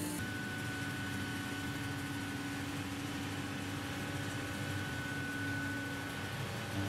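A steady mechanical hum with a thin, constant high whine over a low drone.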